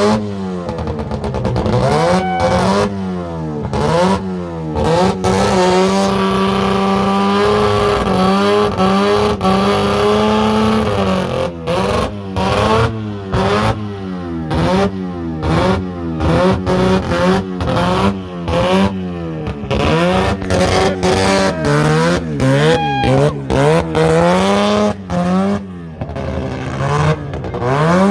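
Rotary engine of a Mazda Bongo van revving hard during a burnout, pitch swinging up and down over and over. It holds high revs for several seconds a quarter of the way in, with quick throttle blips before and after.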